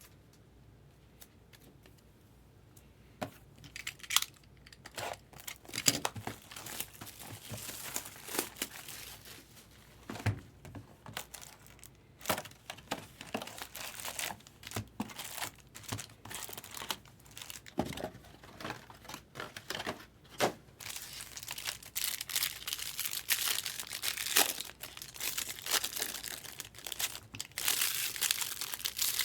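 Wrappers of 2019 Bowman Draft Jumbo trading-card packs being torn open and crinkled. A dense run of crackling and ripping starts about three seconds in.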